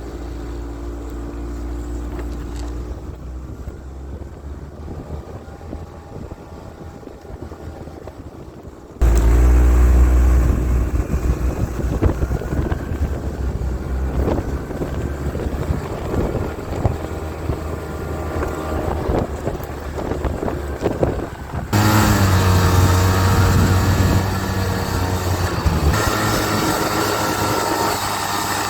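Snowmobile engine running while riding, in three clips cut together: a quieter stretch, then a sudden jump to much louder running about nine seconds in, and another abrupt change to loud running about 22 seconds in.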